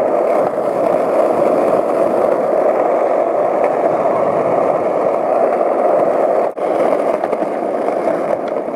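Skateboard wheels rolling fast downhill on pavement: a loud, steady rolling noise with a brief drop about six and a half seconds in.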